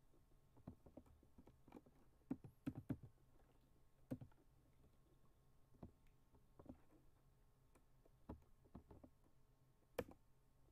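Faint, irregular clicks of a computer mouse and keyboard being used, with a quick run of several taps between about two and three seconds in and a sharper click near the end.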